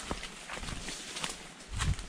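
Footsteps on a leaf-littered forest trail, crunching at an uneven walking pace, with a heavier thud near the end.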